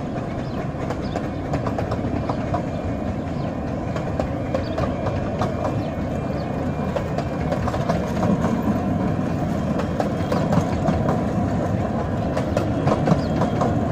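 15-inch-gauge Romney, Hythe & Dymchurch miniature railway carriages rolling across a level crossing: a steady rumble of wheels on rail with rapid clicking over the joints, a little louder in the second half. The crossing's warning alarm sounds faintly as a repeating two-tone pattern.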